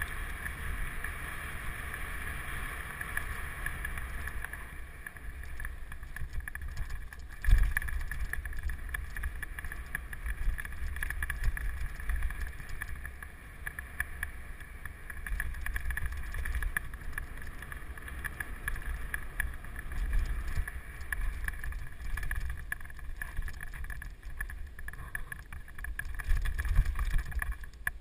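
Mountain bike riding fast down a dirt trail, heard from a camera mounted on the bike: wind buffeting the microphone over a steady rumble of tyres and frame on the rough ground, with one loud knock from a jolt about seven and a half seconds in.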